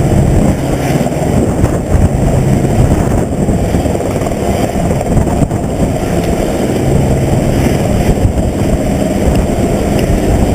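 Helicopter running close by: a loud, steady rotor and engine drone with no letup.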